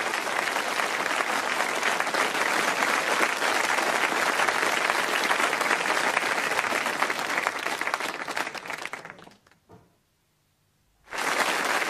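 Studio audience applauding steadily, fading out about nine seconds in. A second or so of silence follows before sound starts again near the end.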